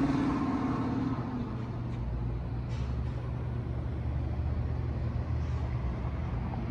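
A 2020 Dodge Durango's Hemi V8 accelerates away through an exhaust that has its middle suitcase resonator replaced by an X-pipe. The exhaust note rises, then fades out over the first second and a half. A steady low engine rumble stays after that.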